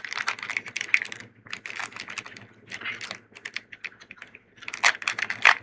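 Foil Pokémon booster pack crinkling and rustling as it is handled and opened, in quick, irregular, sharp crackles.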